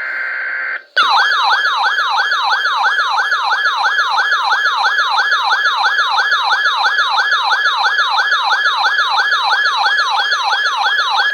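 A weather alert radio's electronic siren alarm going off as an Environment Canada weather alert comes in, a fast repeating up-and-down sweep about two and a half times a second. It is preceded by a steady alert tone that stops just under a second in.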